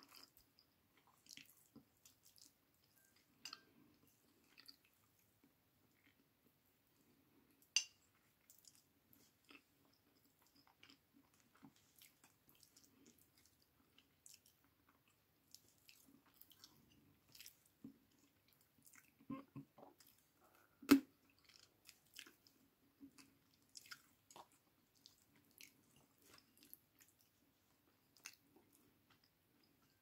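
Close-up mouth sounds of someone eating chicken and rice: quiet chewing with soft wet smacks and small clicks. A sharper click comes about 8 seconds in, and the loudest, a single sharp click, about 21 seconds in.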